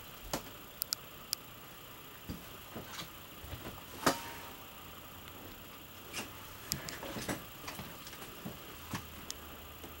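Quiet, irregular light clicks and knocks, with one sharper knock about four seconds in, over a faint low hum: footsteps and handling noise of someone carrying a camera through a travel trailer's interior.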